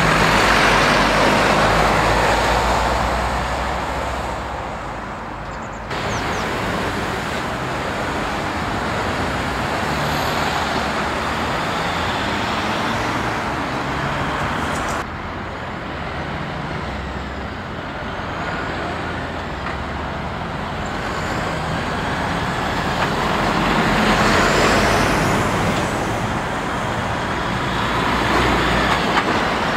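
Heavy diesel lorries and a car passing close by at a road junction, engines running over tyre and traffic noise. The sound swells as vehicles come near, at the start and again late on, and changes abruptly about six seconds in and again about halfway through.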